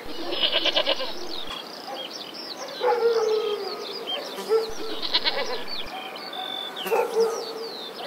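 Goats bleating a few times, drawn-out calls around three seconds in and again near the end, with songbirds chirping throughout.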